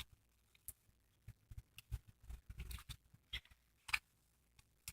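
Slime being handled in the hands: faint, scattered sticky clicks and crackles, about a dozen spread through the pause.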